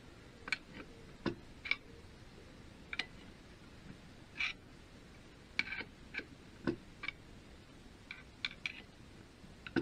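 About fifteen irregular light metallic clicks and taps, a few of them duller knocks, as a bar levers a BSA Bantam D3 crankshaft back and forth in its bolted-together aluminium crankcase. This is the end float check, with the float shimmed to just under 5 thou.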